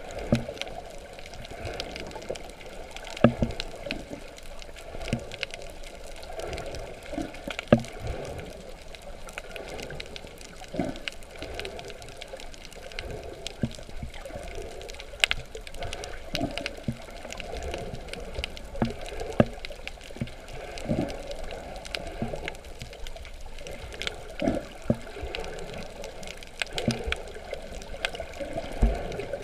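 Water sloshing and gurgling around a snorkeler, with irregular dull knocks about every second.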